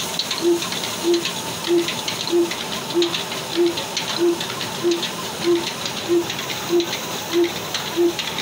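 Old stationary Ruston Hornsby diesel engine running at a slow, steady speed, with an even beat about one and a half times a second. It drives belts and line-shaft pulleys to a cotton painja machine, which adds a steady hiss and crackle.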